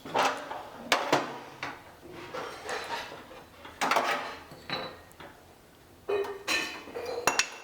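Metal clanks and clinks as the removable parts of a three-burner cooking stove are lifted off and set down, a handful of separate knocks spread irregularly with a short lull near the end.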